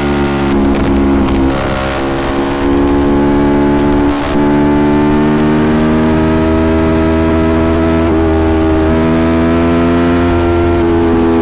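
Aprilia Tuono Factory motorcycle engine pulling under way, heard from the rider's position. Its pitch dips briefly about four seconds in, then climbs slowly as the bike accelerates.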